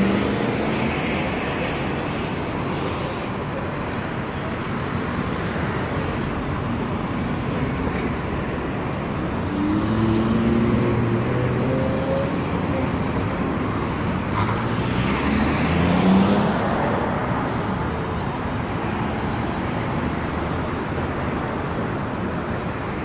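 Busy city-street traffic: steady road noise with vehicle engines accelerating past, rising in pitch about ten seconds in and again about fifteen seconds in, the second the loudest.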